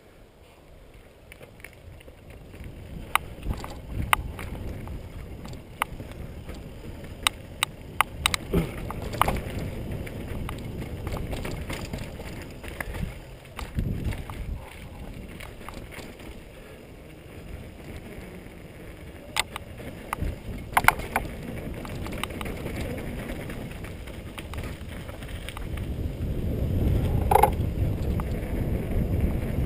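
Mountain bike riding fast down a dirt downhill trail: a steady rumble of knobby tyres on dirt and wind, broken by sharp clicks and rattles from the bike over bumps, getting louder near the end.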